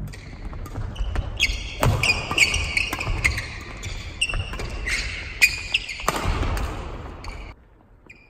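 Badminton doubles rally on a wooden sports-hall floor: sharp racket hits on the shuttlecock, high squeaks of court shoes and thudding footsteps, echoing in the hall. The rally stops near the end.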